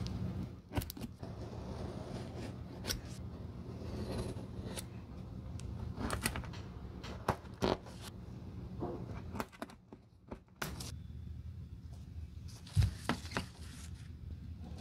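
Scattered taps, scrapes and knocks of shoe-repair material being handled on a workbench: cut pieces of black rubber sole sheet and a cork footbed picked up and set down, over a low steady hum. The sharpest knock comes near the end.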